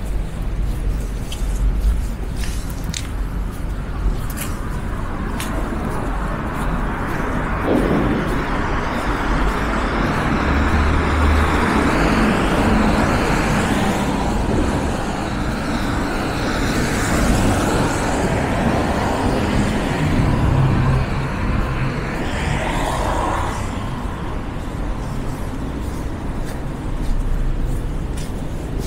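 City road traffic: the rush of passing vehicles swells about a third of the way in and fades again near the end, over a steady low engine rumble.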